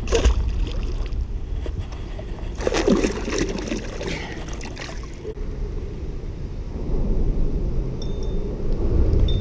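A small channel catfish splashes into the river as it is released. Water then sloshes and laps against the boat over a steady low rumble.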